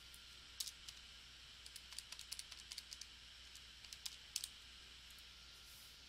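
Faint, irregular clicks of calculator keys being pressed, about a dozen taps, as a division is keyed in, over a low steady hiss.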